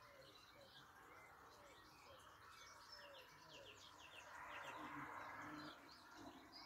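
Faint birdsong: many short chirps over a repeating run of short falling notes. A soft rush of noise swells for a second or so past the middle.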